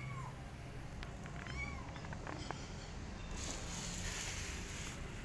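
Kitten meowing: short, high, arching calls, one ending just at the start and another about one and a half seconds in. About three seconds in comes a hissing noise lasting under two seconds.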